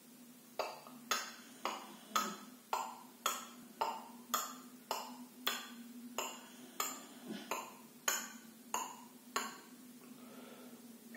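A slow, even series of sharp knocks, each with a short ring, a little under two a second, stopping after about nine seconds, over a faint steady hum.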